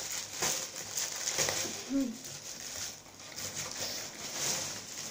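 Plastic postal mailer bag crinkling and rustling in irregular bursts as it is handled and opened by hand.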